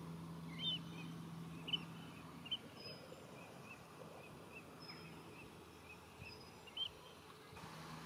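Birds calling: a steady run of short high notes, two or three a second, with a few louder calls scattered among them. A faint low hum underlies the first couple of seconds, then stops.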